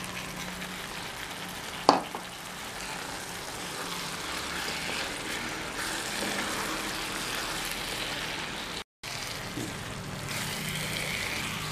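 Onion-tomato masala sizzling in a frying pan as sliced button mushrooms are stirred into it with a wooden spatula. There is one sharp knock about two seconds in, and the sound cuts out for a moment near the end.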